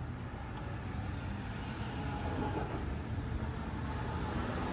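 Car on the road: a steady low rumble of engine and tyre noise that grows a little louder over the few seconds.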